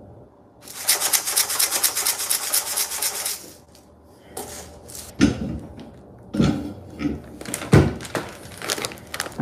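Dry rice and pasta rattling inside a Rice-A-Roni cup shaken rapidly for about three seconds, followed by a few separate knocks and handling bumps.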